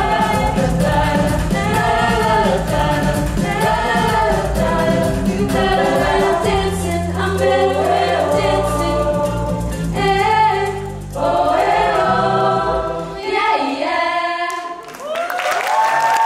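Mixed-voice show choir singing a pop-style number over a backing track with a strong bass beat. Near the end the backing drops out and the choir holds a final chord, as applause starts.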